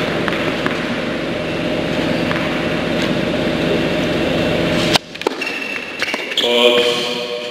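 A steady hum with several fixed tones, under which a tennis ball is bounced faintly a few times before a serve. The hum cuts off suddenly about five seconds in. After that come sharp racket-on-ball hits and a brief voice as the point is played.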